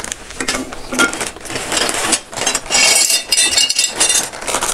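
Plastic and paper packaging crinkling and tearing as metal satellite-dish mounting brackets are pulled out, the brackets clinking against each other and the concrete floor. The handling is busiest about two to four seconds in.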